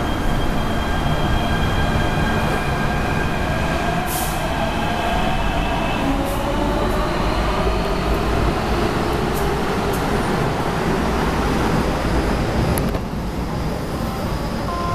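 MTR K-Train electric multiple unit pulling out of an underground station: its traction motors whine in steady tones and then in rising tones as it accelerates, over the rumble of the cars on the track. The sound drops away about 13 seconds in as the last car passes into the tunnel.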